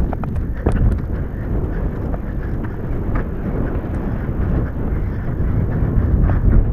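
Wind buffeting the microphone of a rider-mounted action camera while a horse is ridden over grass, with a few hoofbeats in the first second.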